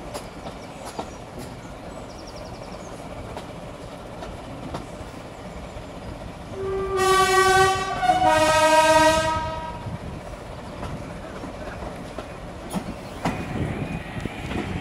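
Two-tone horn of a Class 14 diesel-hydraulic locomotive sounding a warning for a level crossing ahead: a higher note held about a second, then a lower note about a second and a half, starting just before the middle. Beneath it the coach runs along with the click of wheels over rail joints.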